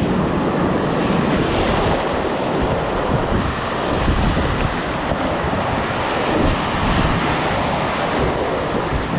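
Loud, steady rushing of whitewater rapids on a river in high flood, heard close up from the kayak, with wind buffeting the camera microphone.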